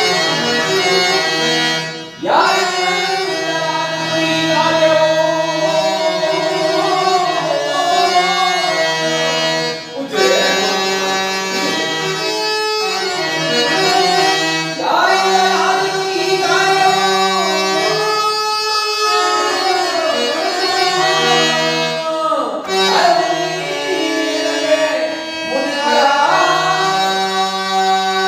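A voice singing a Carnatic-style melody in gliding phrases, over steady held notes from an accompanying instrument. There are short breaks in the phrase about 2 and 10 seconds in.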